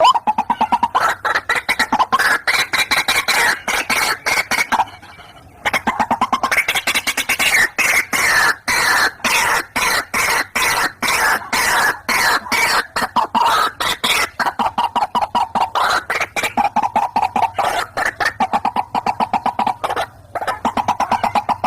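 White-breasted waterhens calling, a long fast series of harsh repeated croaking notes, several a second, with a brief pause about five seconds in; the male-and-female calling used as a lure call.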